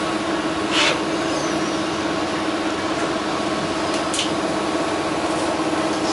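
Cabin noise inside a New Flyer XD60 diesel articulated bus: a steady hum of the engine and air conditioning, broken by two short hisses of air, about a second in and about four seconds in.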